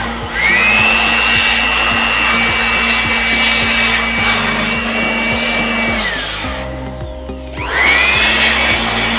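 NANKAI handheld electric blower running, a high motor whine over a rush of air as it blows dust out of an amplifier chassis. The whine rises as the motor spins up at the start, winds down about six seconds in, and spins back up about eight seconds in.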